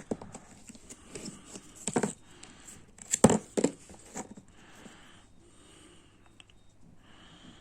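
Plastic packaging of a desktop processor being handled and opened: soft rustling and crinkling with a few sharp clicks, the loudest about three seconds in, quieting in the second half.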